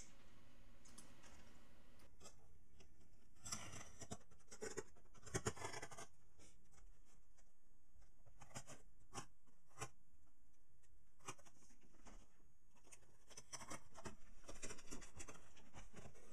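A knife blade slitting the packing tape on a cardboard shipping box in a series of short, scratchy scraping strokes. Near the end, cardboard rubs and rustles as the cut box top is pulled open by hand.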